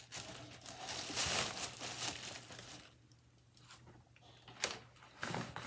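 Crinkling and rustling of empty product packaging being handled and set aside, with a short knock near the end.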